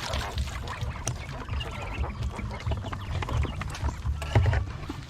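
Flock of farmed quail: many small irregular taps and clicks with faint chirps, over a steady low rumble.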